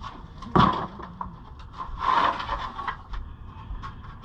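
Wood being handled and knocked about: a sharp knock about half a second in, then a longer scraping clatter and a few small clicks.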